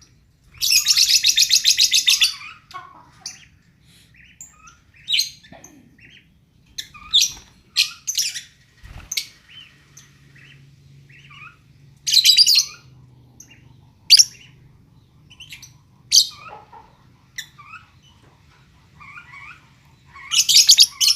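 Lovebirds chirping, with three bursts of loud, rapid, shrill chattering (about a second in, about halfway, and near the end) and short scattered chirps between.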